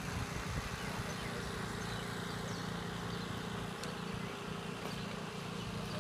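Open-air ambience: a steady low hum under a light even hiss, with a few faint high chirps.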